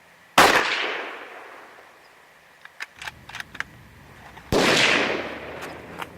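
Two rifle shots from a .223, about four seconds apart. Each is a sharp crack that echoes away over a second or so. A few light clicks come between them.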